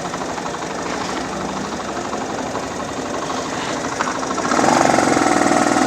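Motorcycle engine running steadily with a fast, even pulse, getting louder about four and a half seconds in.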